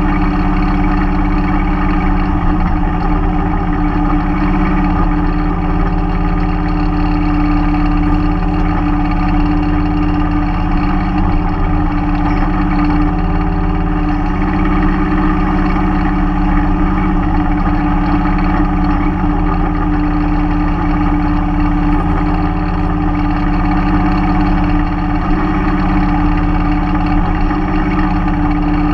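Mahindra 3016 compact tractor's diesel engine running steadily while working the backhoe, its pitch shifting slightly now and then.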